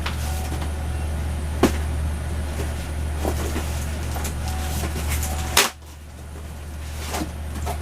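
Cardboard boxes of packaged squeeze toys being handled: scattered knocks and taps, the loudest about five and a half seconds in, over a steady low hum.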